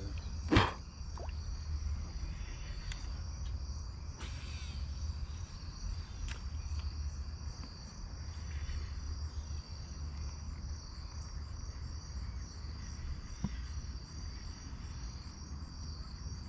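Steady chorus of chirping insects with a fast even pulse, over a low rumble. A single sharp click comes about half a second in.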